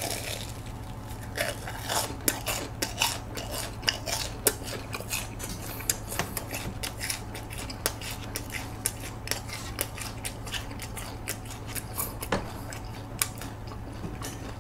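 Close-up crunching and chewing of a sugar-coated, deep-fried Korean corn dog: many sharp, irregular crisp clicks as the fried batter and sugar crust break between the teeth.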